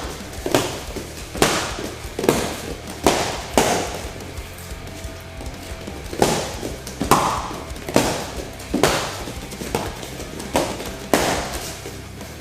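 About a dozen sharp punch impacts in quick groups of two or three, with a pause in the middle: the jab, back fist and reverse punch of a point-fighting reaction drill landing on target. Background music plays throughout.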